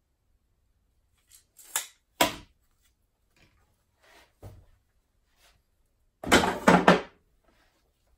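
Hand handling of a tape measure and wood pieces on a workbench: scattered clicks and light knocks, a sharp knock a little over two seconds in, and a louder quick run of knocks about six seconds in. No saw is running.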